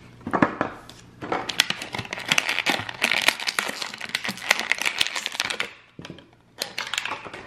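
Clear plastic blister bubble of an action-figure package crinkling and crackling in the hands as the figure is worked out of it. The sound comes in three spells of dense crackling with short pauses between, the longest from about one second in to nearly six.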